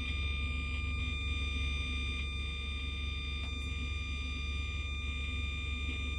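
Small speaker driven by an MH-M38 Bluetooth amplifier module, putting out a steady electrical hum and buzz with a thin high whine while no audio is playing: the module's idle noise, called bothersome.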